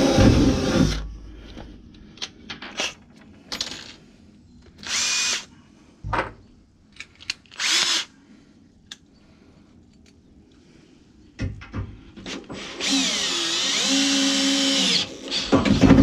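Cordless drill driving screws through the metal rail of a sliding cargo tray. It runs until about a second in, gives two short bursts around five and eight seconds with light clicks between, then runs longer near the end with its pitch dipping and rising, and starts again right at the end.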